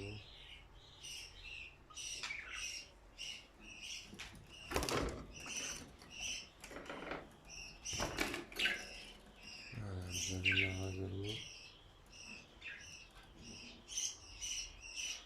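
Small cage birds chirping over and over in short, repeated high notes, with a few sharp knocks and flutters in the aviary.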